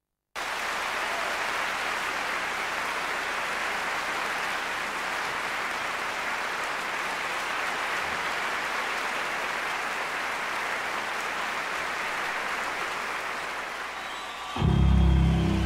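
Large concert audience applauding, an even steady clatter of hands that starts suddenly and eases slightly toward the end. Band music comes in loudly near the end.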